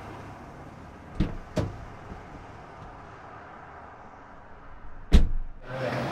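Car door being worked: two short knocks about a second in, then the door slammed shut about five seconds in, the loudest sound.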